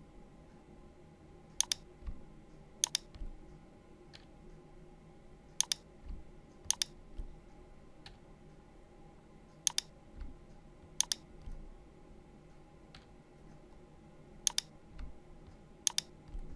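Computer mouse clicks and keyboard key presses: sharp clicks in four pairs, the two of each pair a little over a second apart, with softer taps between them, over a faint steady hum.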